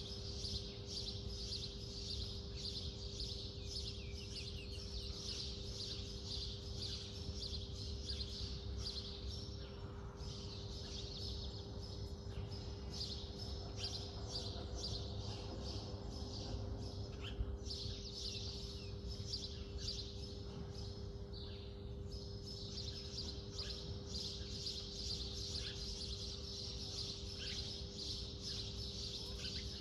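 Small birds chirping densely and rapidly, with a steady low hum and rumble underneath.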